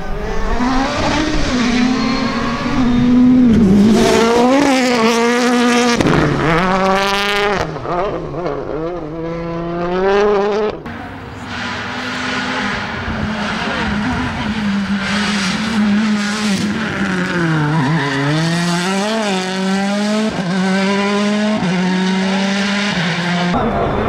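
Hyundai i20 WRC rally car's turbocharged 1.6-litre four-cylinder engine at full attack, revving hard and dropping in pitch at each quick gear change, with sharp cracks at times. The car passes several times in succession.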